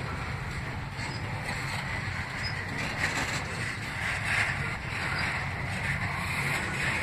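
Double-stack container well cars of a CSX freight train rolling past: a steady low rumble of steel wheels on rail, with a hiss that swells and fades.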